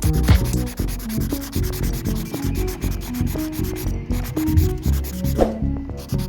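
Electronic background music, short held bass and mid notes in a busy repeating pattern, over a dense scratchy rubbing noise; both drop out briefly near the end.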